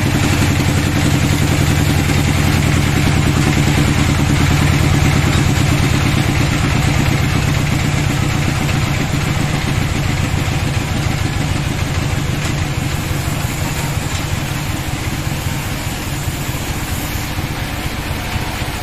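Band sawmill running, its blade cutting lengthwise through a teak log: a steady low machine hum under a continuous hiss of the cut. The sound eases a little in loudness in the second half.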